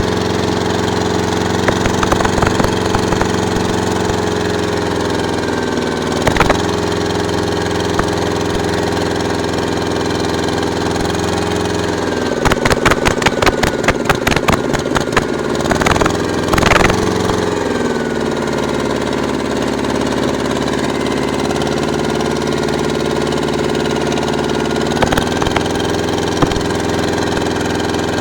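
An engine running steadily at a constant pitch, dipping briefly a few times. About halfway through, its steady note drops out for a few seconds under a run of rapid clicking knocks, then comes back.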